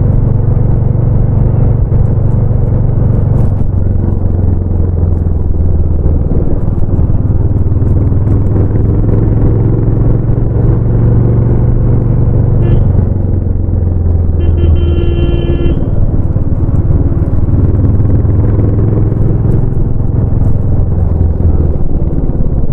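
Royal Enfield Bullet 350's single-cylinder engine and exhaust running under way, its pitch rising and falling as the speed changes. A horn sounds for about a second and a half past the middle.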